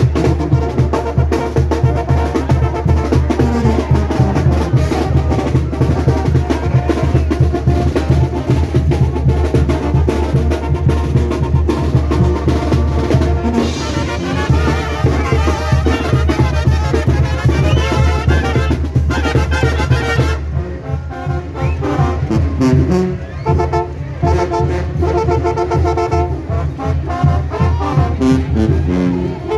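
Live Mexican banda brass band playing: trumpets, trombones and drums over a steady low bass. About twenty seconds in, the cymbals and snare drop back and the brass melody stands out more clearly.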